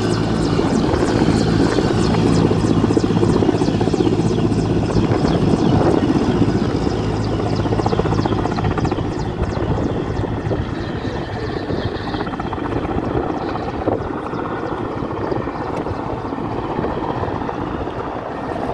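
Low-flying military helicopter, with its rotor beating rhythmically and its turbines running close by. The beat thins out and grows fainter after about eight seconds as the helicopter moves away.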